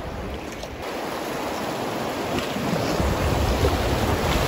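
Rushing river water in a rapid, growing louder, with a low rumble of wind buffeting the microphone from about three seconds in.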